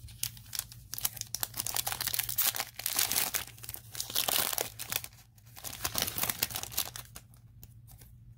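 A Yu-Gi-Oh booster pack's foil wrapper being torn open and crinkled by hand. It makes a dense run of crackling that eases off about seven seconds in.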